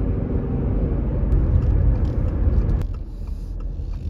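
Road and engine noise heard from inside a car cruising at highway speed, a steady low rumble with tyre hiss. About three seconds in it cuts off abruptly to a much quieter cabin.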